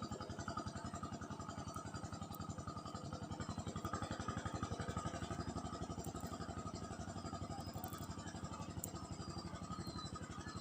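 A small engine running steadily with a fast, even putter, with no change in speed.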